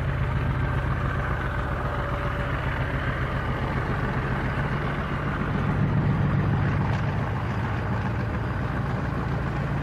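OO gauge model train (a model of diesel locomotive LMS 10000 hauling a rake of coaches) running along the track: a steady hum and rumble from the motor and wheels on the rails, slightly louder as the coaches pass close by about six seconds in.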